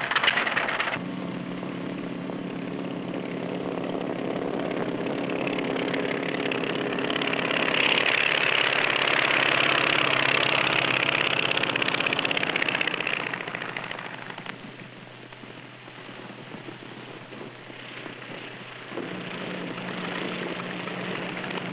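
Light pusher-propeller airplane's engine running with a steady drone, growing loudest about a third of the way in as the plane passes in flight, then fading away before the drone returns near the end.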